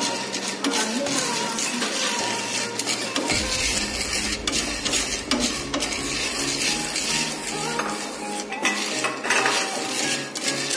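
Coffee beans rattling and scraping as a wooden spatula keeps stirring them round a dry Teflon frying pan, a steady clatter of many small clicks with no pause.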